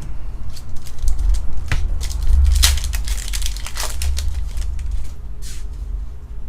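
Foil booster-pack wrapper crinkling and tearing as a Pokémon card pack is opened, over low thumps of hands and cards handled on the table.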